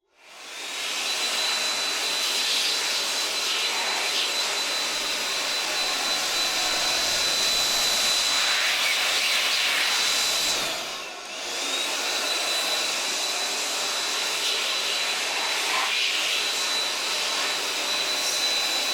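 A small high-speed electric motor driving a fan, running steadily with a high whine over a rush of air; it slows briefly about eleven seconds in, then picks back up.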